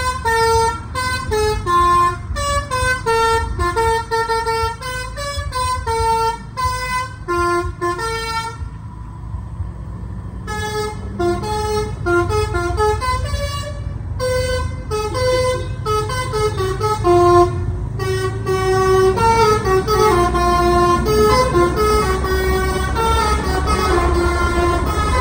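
Bus "telolet" multi-tone musical air horn playing a quick melody of short notes, set to a new tune. It breaks off for about two seconds a third of the way in, and a low engine rumble runs underneath.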